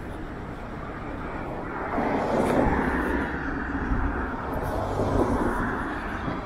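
Road traffic passing on a city street: the noise of cars' tyres and engines builds about two seconds in, swells again near five seconds, then fades.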